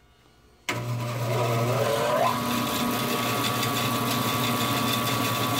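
Bandsaw switched on about a second in: the motor starts abruptly with a rising whine as it spins up to speed over about a second and a half, then runs steadily with a constant hum.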